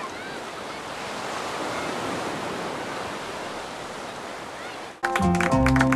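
Waves washing on a pebble beach, a steady surf noise that swells slightly and eases. About five seconds in it cuts off abruptly as music with plucked string notes begins.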